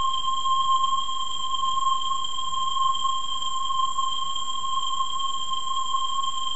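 A steady, unchanging high-pitched electronic tone, with fainter higher tones held above it and a faint hiss beneath: a sustained drone in an experimental music track.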